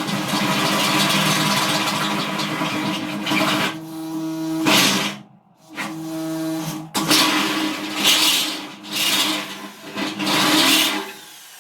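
Electric drill boring holes in metal, the motor running hard with the bit cutting, then stopping and restarting several times in short runs from about four seconds in.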